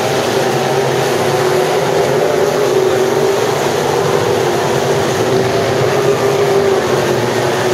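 Dirt-track sport modified race cars running together around the oval, their engines a loud, steady sound with no let-up.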